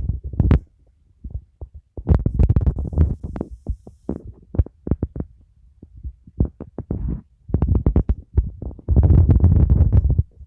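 A busy run of irregular low thumps and knocks, coming in clusters with short quieter gaps and a dense stretch near the end.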